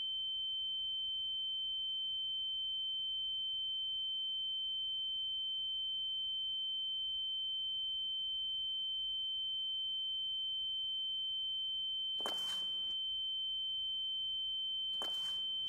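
A single steady high-pitched pure tone, the ear-ringing (tinnitus) effect used in film to stand for a beaten, dazed character's hearing. Two short, soft noises come in near the end.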